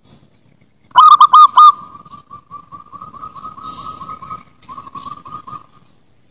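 Zebra dove (perkutut) singing: a loud group of four quick coos about a second in, then a long run of softer, rapid rolling coos at the same pitch that fades out before the end.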